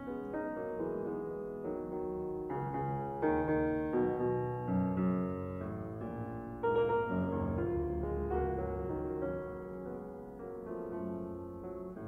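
Background piano music, a series of notes and chords.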